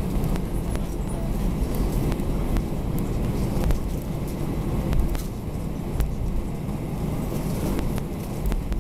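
Cabin noise inside an Airbus A320 landing: a steady low rumble with many light rattling clicks.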